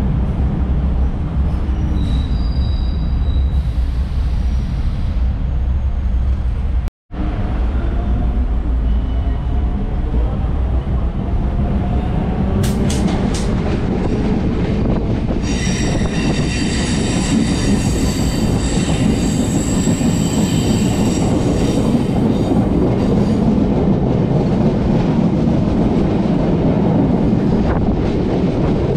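Chennai MRTS electric suburban train running with a steady rumble. After a split-second dropout a whine rises in pitch, and past the middle a high wheel squeal sounds for several seconds.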